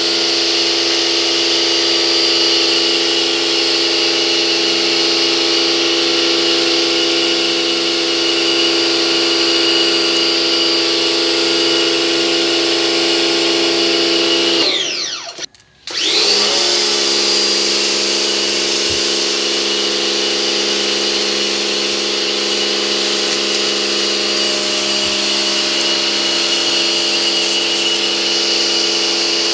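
Pressure washer's motor and pump running steadily with a whine and a hiss. About halfway through it winds down, stops for a moment, then spins back up and runs on.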